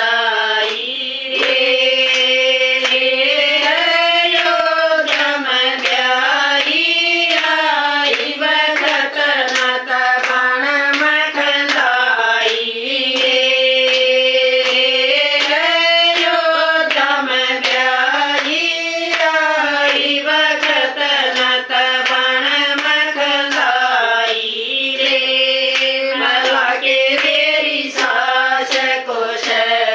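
A group of women singing a Hindu devotional bhajan to Sita in unison, without instruments, clapping their hands along in a steady rhythm.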